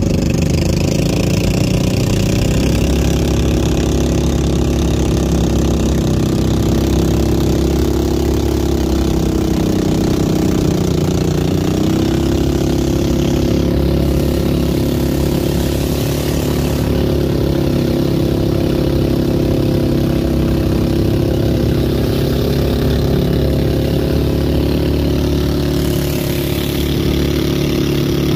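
Small engine of a motorized bangka (outrigger boat) running steadily under way, with a brief change in its note about eleven seconds in.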